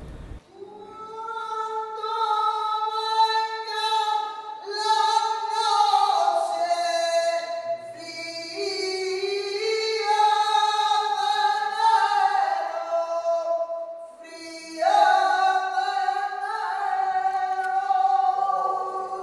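A woman's voice singing flamenco cante in long, ornamented held notes that bend from pitch to pitch, with a short break for breath about two-thirds through.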